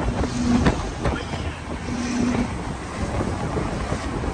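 Wind rushing past the cab window and into the microphone, over the steady low rumble of a truck's engine and tyres on the highway.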